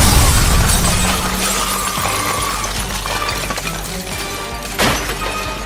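Cartoon explosion sound effect: a sudden blast with shattering glass, its low rumble fading over several seconds, over background music. A second sharp hit comes near the end.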